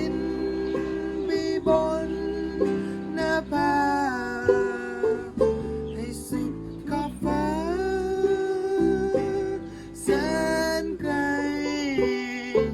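Acoustic folk band playing an instrumental passage: strummed guitar chords under a lead melody that slides up and down between held notes.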